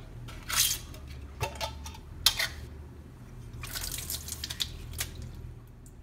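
Water splashing and dripping out of a glass mason jar into a kitchen sink as the jar is tipped over, in a series of short, irregular splashes. The hard-boiled egg inside has just been shaken in water to loosen its shell.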